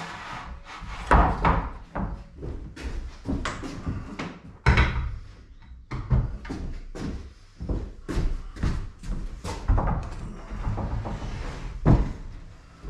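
Pine worktop boards knocking and bumping against each other and the wooden counter frame as they are shifted and laid in place: a run of sharp wooden knocks, loudest about a second in, near five seconds and near the end.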